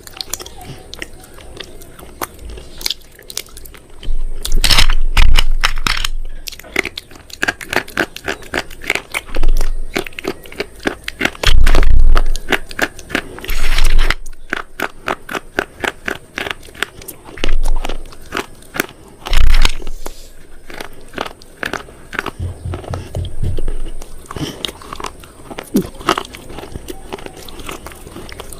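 Close-up crunching of crisp food being bitten and chewed: a dense run of sharp crackles, with several heavier, louder crunches every few seconds.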